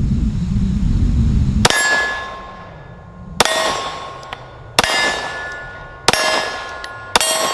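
Glock P80 9mm pistol fired five times at a steady pace, each shot followed by the ringing clang of a steel target plate, the pitch changing from plate to plate as the shooter works left to right. A low rumble comes before the first shot.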